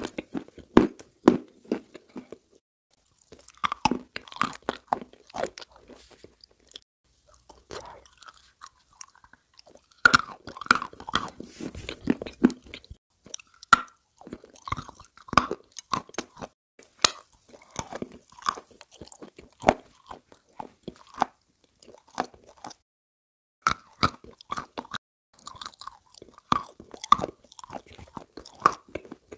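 Close-miked chewing and crunching of cream-covered biscuits, with wet mouth clicks, coming in irregular runs broken by short pauses.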